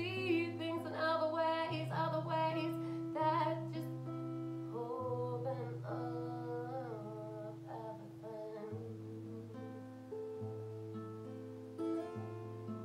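A woman singing a slow, emotional melody over held instrumental accompaniment. Her voice carries the first seven or so seconds, then largely drops away while the accompaniment holds long notes.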